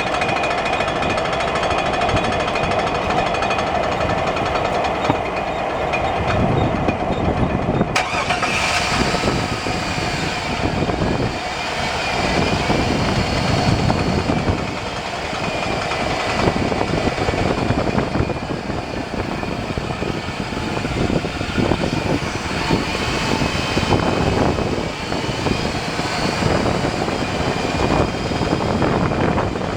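2001 Chevy Silverado driving at highway speed: steady road and wind noise with a constant noise from the front driveline. The owner found the cause in the front drive shaft that runs from the transfer case to the front differential. About a quarter of the way in, the hiss suddenly grows louder and brighter.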